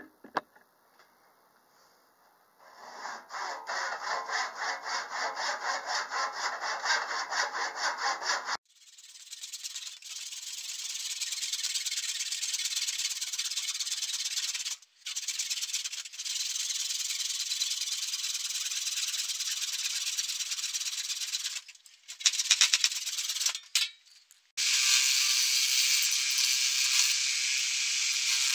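Handsaw cutting through a dead cherry branch with rhythmic back-and-forth strokes. About 25 seconds in the sound changes to a wood lathe running, with a steady motor hum under the hiss of a gouge cutting the spinning cherry blank.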